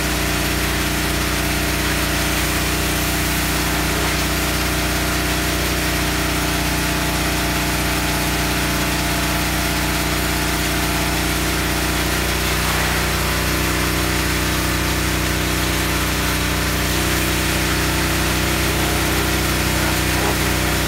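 Cheap pressure washer running steadily under load while spraying water, its motor hum mixed with the hiss of the spray. The motor's pitch steps up slightly about twelve seconds in.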